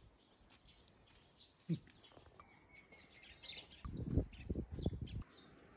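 Birds chirping in short, repeated, falling calls, with a brief whistled note about two and a half seconds in. A run of low thumps and rustles, the loudest sound here, comes about four to five seconds in.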